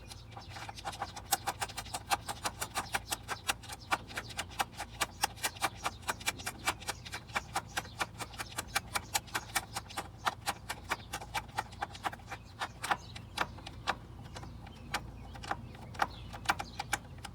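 Ratchet with a 10 mm socket clicking in quick, even strokes, about five clicks a second, as the idle air control valve's mounting bolts are backed out, with a short break near the end.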